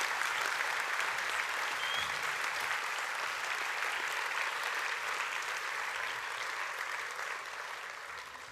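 An audience clapping steadily, dying away gradually over the last couple of seconds.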